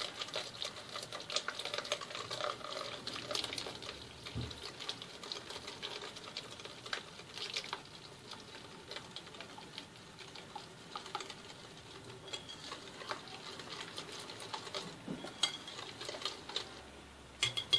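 A hand whisk beating eggs in a glass bowl, with a quick, irregular run of light clicks as the wires strike the glass.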